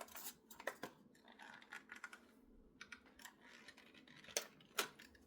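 Small objects being handled: light clicks, taps and scratches, the sound of mini perfume bottles, caps and their packaging being picked up and turned over, with a few sharper clicks about a second in and near the end.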